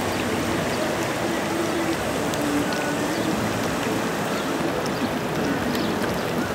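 Floodwater of an overflowing creek rushing past in a steady, unbroken wash of noise.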